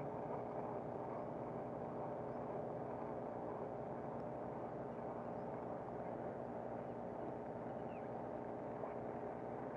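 A steady mechanical hum, many held tones that do not change, like an engine running at a constant speed. There is a faint short chirp about eight seconds in.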